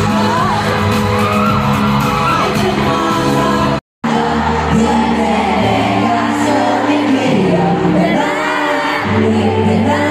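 Pop music with a singing voice over steady bass notes, with crowd whoops, broken by a brief gap of silence about four seconds in.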